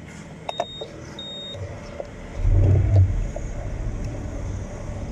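Two short electronic beeps, then a motorcycle engine starts about two and a half seconds in with a loud burst and settles into a steady idle.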